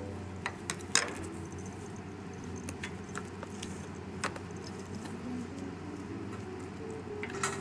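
Quiet background music, with a few sharp light clicks and taps. The loudest click comes about a second in and another near the end.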